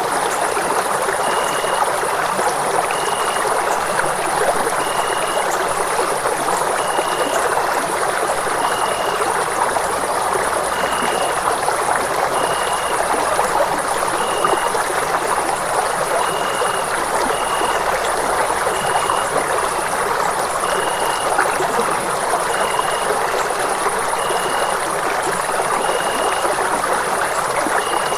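Running water rushing steadily, an even unbroken sound with no pauses or surges. A faint high chirping tone repeats in short pulses about every second or two over it.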